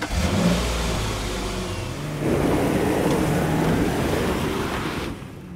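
A vehicle engine rumbling and revving, with a low pitch that rises and grows louder about two seconds in, then fades away near the end.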